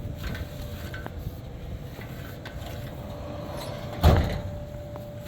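A steady low hum with rumble underneath, and one loud thump a little past the middle.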